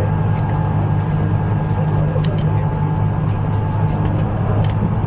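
Steady running noise of a 253-series electric limited-express train cruising at about 100 km/h, heard inside the car: a constant low rumble with a few faint ticks.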